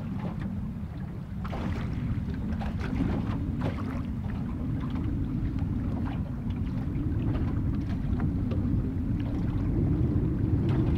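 Steady low rumble of wind over choppy lake water around a small boat, with faint scattered ticks.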